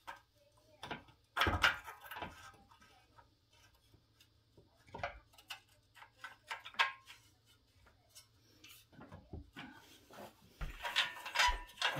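Scattered metallic clicks and clinks of a Honda Z50's exhaust pipe, mounting stud and bolts being handled while the exhaust is worked into place by hand. The handling gets busier near the end.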